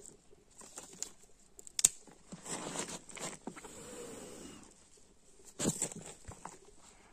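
A person blowing in bursts on smouldering kindling to coax a fire alight, with scattered clicks and rustling; a sharp click about two seconds in is the loudest sound.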